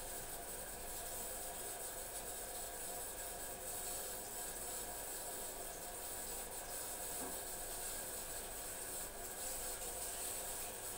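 Tap water running steadily into a sink basin, with soft rubbing as a wet cat's fur is scrubbed by hand.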